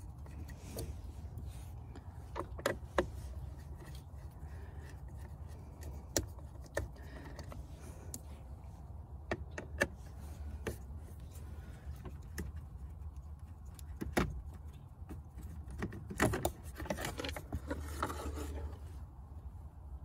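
Scattered sharp clicks and small metallic ticks from a screwdriver working screws out of the plastic lower steering-column shroud of a 2001 Saturn. Near the end come a few seconds of plastic scraping and rattling as the shroud is worked loose. A steady low hum runs underneath.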